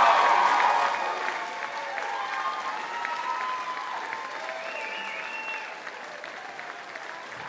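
Audience applauding at the end of a song, loud at first and slowly dying away, with a few voices calling out over the clapping.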